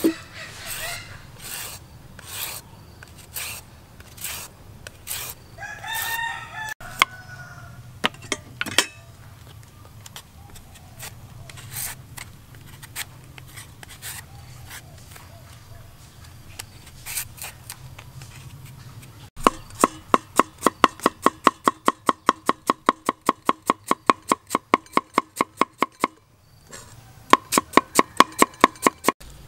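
Julienne peeler scraping in repeated strokes as it shreds carrot and then a green fruit on a wooden board, with a rooster crowing briefly about six seconds in. From about two-thirds of the way through, a cleaver chops rapidly on the wooden board, about six strokes a second, pausing briefly and resuming near the end.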